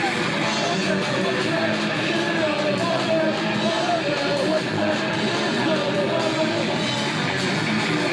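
Live punk rock band playing loud and steady, with electric guitars and some singing.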